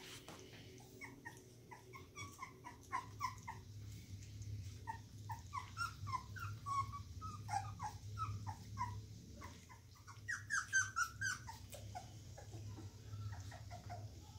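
Two-week-old Australian Shepherd puppies whimpering and squeaking, many short high calls overlapping, loudest and shrillest about ten seconds in. A steady low hum runs underneath.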